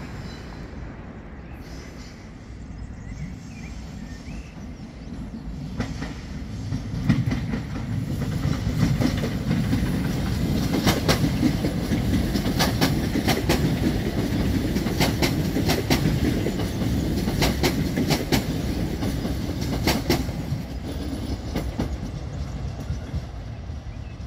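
ZSSK class 660 electric multiple unit passing by, its wheels clacking over rail joints and points in a string of sharp clicks. The rumble swells about five seconds in and fades near the end.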